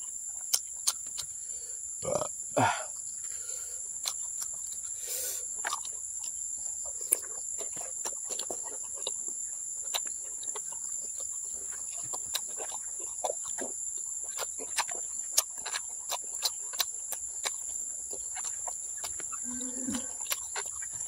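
Insects chirring steadily in two high, unbroken tones, with close-up clicks and wet smacks of chewing and lip-smacking as gelatinous boiled cow skin is eaten.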